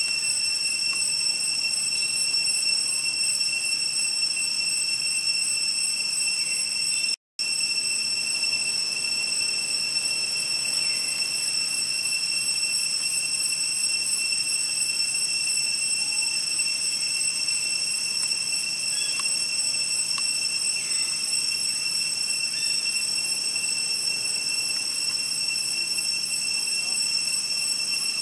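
Forest insects, likely cicadas, droning as a steady high-pitched whine at an unchanging pitch. The sound cuts out for an instant about seven seconds in.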